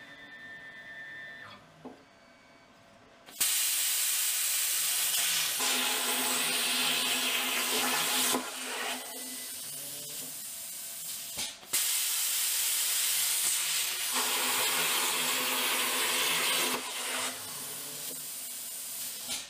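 A plasma cutter's torch on a CNC plasma table hisses loudly as it cuts 3/8 inch steel plate. The hiss starts suddenly about three seconds in and drops in level for short spells, after a steady high electronic tone at the start.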